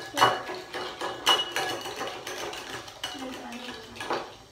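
Metal fork clinking and scraping against a bowl as a mixture is stirred, in irregular knocks with short ringing.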